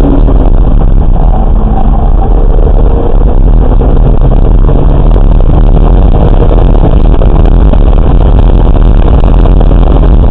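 Car at speed on a race track, heard from a camera mounted on the car: a loud, steady rumble of engine, tyre and wind noise, heaviest in the low end.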